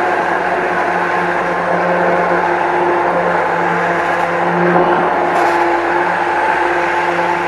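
Electric blender puréeing onion and chickpea soup, its motor running steadily with a slight wavering hum, then switching off abruptly at the very end.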